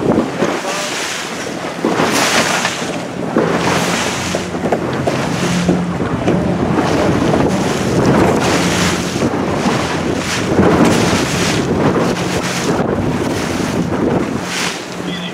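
Wind buffeting the microphone in gusts over water splashing and rushing past a boat under way, with a low steady hum underneath.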